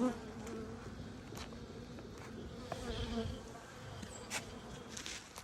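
Honeybees buzzing in a steady hum around an opened hive, with a few sharp clicks over it.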